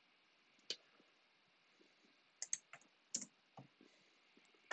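About half a dozen scattered computer keyboard keystrokes, short sharp clicks with a small cluster in the middle, over near-silent room tone.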